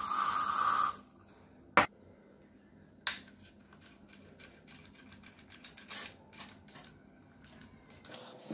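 An aerosol can of Pledge furniture polish spraying in one hiss of about a second. It is followed by a sharp click and a second knock, then faint small clicks and handling noises.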